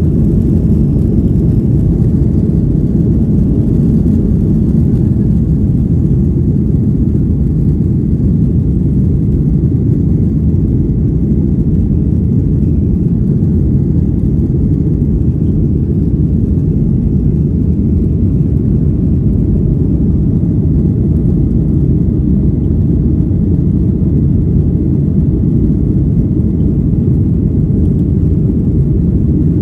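Cabin noise of a Boeing 737-800 during the climb after takeoff: the steady low rumble of its CFM56-7B turbofan engines and the airflow over the fuselage, with no change in level.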